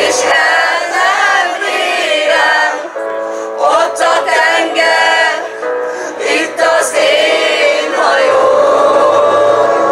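A group of students singing a song together into microphones, holding a long note near the end.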